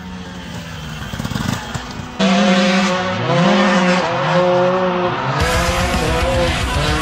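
Dirt bike engine revving hard under load, its pitch rising and falling. The sound gets suddenly louder about two seconds in.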